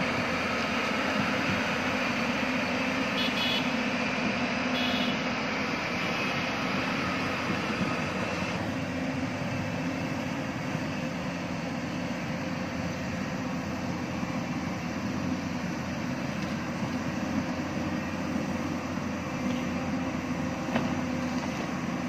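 Hyundai crawler excavator's diesel engine running steadily under hydraulic load as the machine swings its boom and digs its bucket into the hillside soil, easing slightly about eight seconds in.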